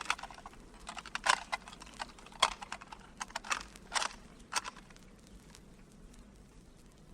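A string of sharp, irregularly spaced cracks and snaps from a horror sound-effects record, dying away about five seconds in to faint background hiss.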